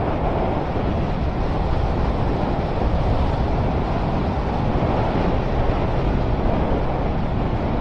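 Steady wind rush buffeting the microphone of a motorcycle ridden at road speed, with engine and tyre noise blended beneath it.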